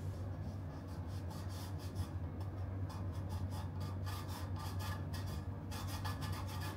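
A fingertip rubbing and scraping over the tape residue on a Zipp 808 carbon tubular rim's bed, a run of short, irregular scratchy strokes.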